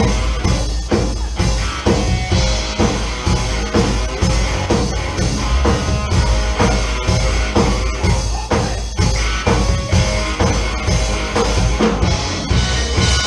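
Live rock band playing an instrumental passage, the drum kit keeping a steady, driving beat with bass drum under the other instruments.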